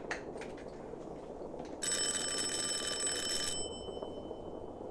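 A high-pitched bell rings steadily for nearly two seconds, starting suddenly about two seconds in, then cuts off, leaving a faint fading ring.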